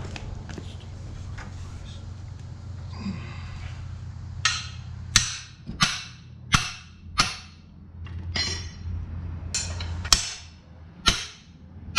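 Hammer blows on metal: about nine sharp strikes, starting about four seconds in and mostly under a second apart, each with a brief ringing tail. A steady low hum runs underneath.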